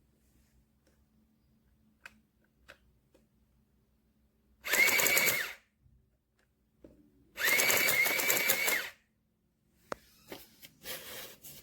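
Printing calculator's thermal tape printer feeding and printing paper tape: two whirring bursts, about one and one and a half seconds long, each with a steady high motor whine, after a couple of faint key clicks. A sharp click and a few shorter noises follow near the end.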